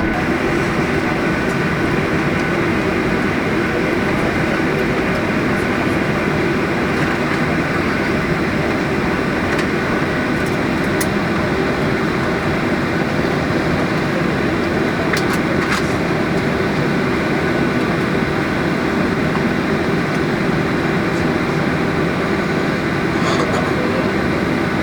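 Steady cabin noise inside a Boeing 737-800: the jet engines and air system running as an even rumbling hiss with a few faint steady tones.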